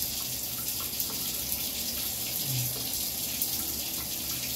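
Steady hiss of water running in a bathroom.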